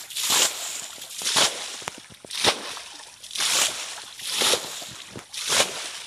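Water being bailed out of a shallow pit with a plastic basin: a splash about once a second, six in all, as each scoop is flung out, to drain the pit.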